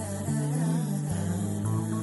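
Music from a Malayalam song, an instrumental passage of held low notes under a wavering melody line.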